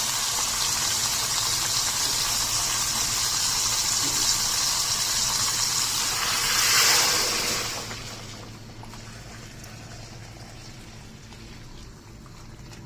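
Boiled water poured from a vessel into a cooking pot: a steady gushing pour that swells near the end and stops about eight seconds in, leaving a quieter steady hiss.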